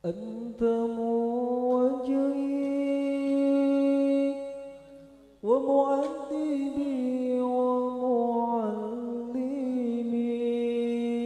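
A male lead voice sings an unaccompanied sholawat introduction into a microphone. It is two long, drawn-out phrases: a held note for about five seconds, then a second phrase with ornamented turns, with no drums under it.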